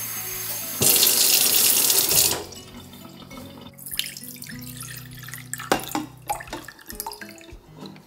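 Kitchen tap running into a plastic measuring cup, the stream much louder for about a second and a half before it is turned off. Then water is poured from the cup into a stainless steel saucepan, with lighter splashing and a few small knocks.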